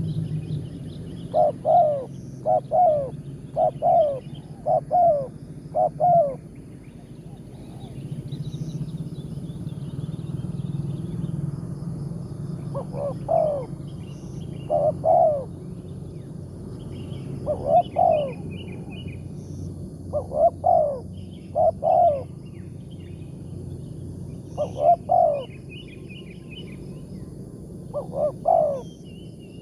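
Spotted dove (tekukur) cooing: low, downward-bending coo notes, a run of about five near the start, then in pairs and threes every two to three seconds. Small birds chirp faintly above it over a steady low hum.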